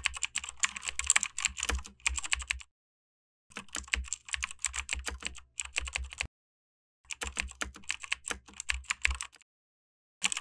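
Computer-keyboard typing sound effect: rapid key clicks in three runs of two to three seconds each, with short silent pauses between them, one run for each line of text being typed out.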